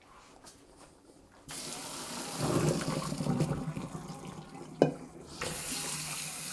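Hot water and parboiled rice poured from a pot into a metal mesh strainer in a stainless steel sink, splashing loudest a couple of seconds in, with one sharp metal clank near the end of the pour. Water then runs steadily into the sink as the drained rice is about to be rinsed.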